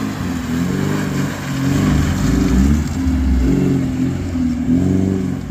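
Maruti Gypsy 4x4 engine revving, its pitch rising and falling again and again as it drives through muddy ruts and passes close by.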